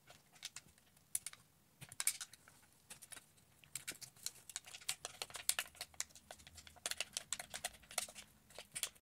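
Thin aluminium sheet cut from a drink can being folded and creased by hand: a run of light, sharp crackles and clicks, sparse at first and thicker from about four seconds in, cutting off abruptly near the end.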